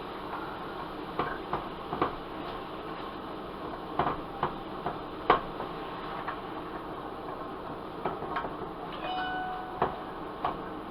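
Kitchen clatter: irregular clicks and knocks of utensils and cookware over a steady background hum, with a short beeping tone about nine seconds in.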